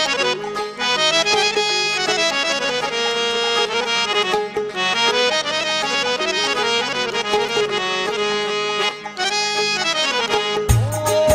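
Instrumental music in which a reed instrument plays a running melody over a low, steady drone. Near the end, low drum strokes come in under a long held note.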